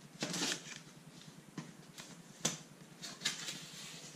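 A box cutter slicing through packing tape on a cardboard box, a rasping stroke near the start, then sharp scrapes and rustles of cardboard about two and a half and three and a half seconds in as the flaps are worked open.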